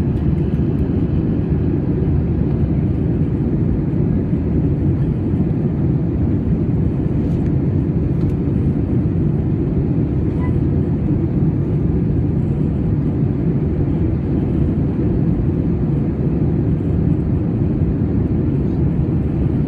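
Steady engine and airflow drone inside the cabin of an Airbus A320 airliner in flight, a deep even rumble with no change in level.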